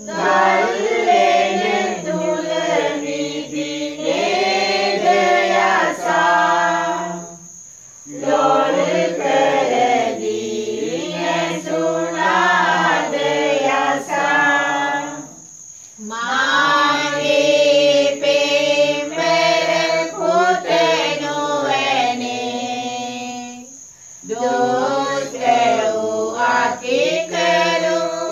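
A group of voices singing a Sinhala Catholic pasan (Lenten passion hymn) in long sung phrases, with a short pause for breath about every eight seconds.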